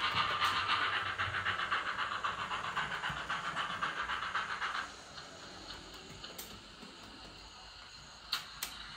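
OO-scale model of a GWR Manor 4-6-0 steam locomotive, its on-board LokSound 5 sound decoder playing a quick, steady beat of steam-exhaust chuffs through the model's small speaker. The chuffing drops away sharply about five seconds in, leaving a faint hiss and a few short clicks near the end.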